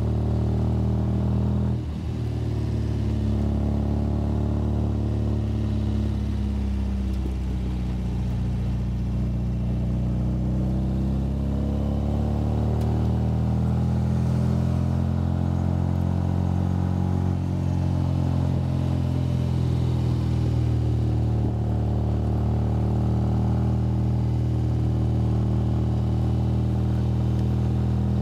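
MGA sports car's four-cylinder engine running as the car climbs a mountain road, heard from the cockpit. The engine note dips briefly about two seconds in, then drifts down and back up as the car pulls on.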